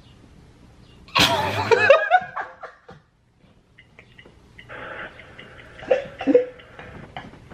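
A person laughing hard about a second in, then quieter chuckling a few seconds later.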